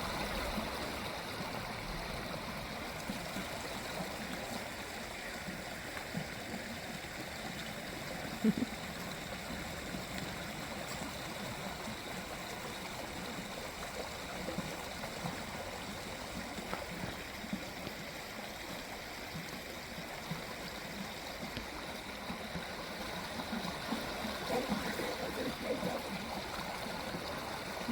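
Creek water flowing steadily, a constant rushing and gurgling, with one brief sharp sound about eight seconds in.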